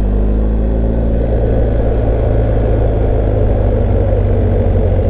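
BMW GS Adventure motorcycle engine cruising at a steady low speed. Its low engine note eases slightly at the start, then holds level under wind and tyre noise on a wet road.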